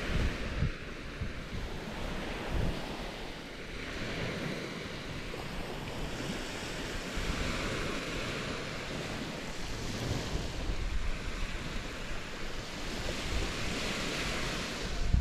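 Small sea waves washing onto a sand beach, swelling and fading every few seconds, with wind rumbling on the microphone.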